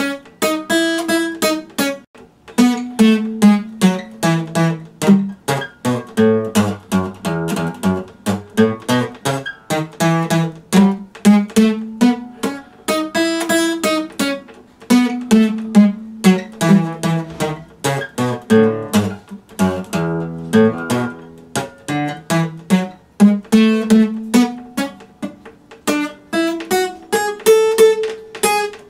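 Epiphone acoustic guitar strummed in a steady rhythm, cycling through a repeating chord progression.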